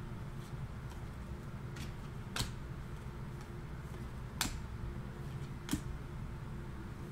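Panini Prizm basketball cards being flipped through by hand, each card moved to the back of the stack with a short sharp click; three louder clicks fall in the middle, with a few fainter ones between, over a steady low hum.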